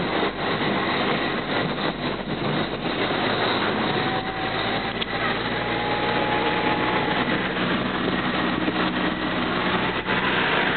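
Car engine running and road noise heard from inside a moving car: a steady low hum under an even hiss.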